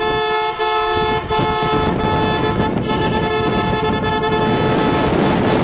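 Car horn sounding in one long steady note, with a rushing noise underneath; about five seconds in the horn stops and the rushing noise takes over.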